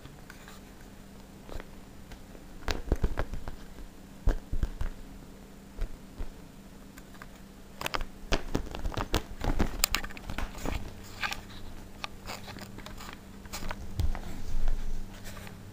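Clear plastic bag crinkling and crackling in irregular bursts as a kitten moves about inside it, busiest in the second half.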